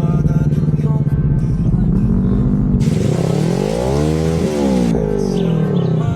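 Motorcycle engine running steadily under way; about three seconds in it revs up and drops back down over a couple of seconds, with a loud rushing hiss over the same stretch.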